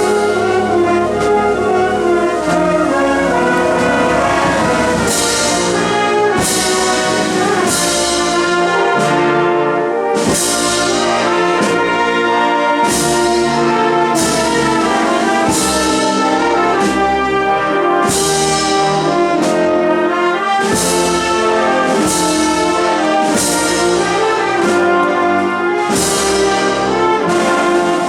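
Spanish wind band (banda de música) playing a procession march: brass holding full sustained chords. About five seconds in, percussion strokes join and keep a steady beat.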